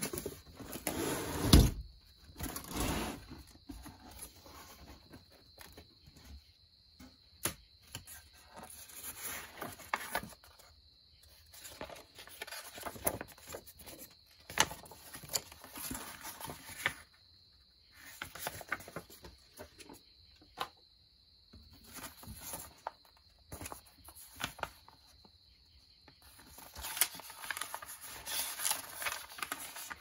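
Paper and cardboard packing being handled: sheets rustling and booklet pages being turned over the open fan box, in irregular bursts with short quiet gaps. A single thump about a second and a half in.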